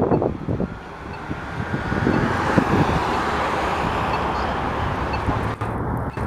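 A road vehicle passing close by: engine and tyre noise swell about a second and a half in and then hold steady.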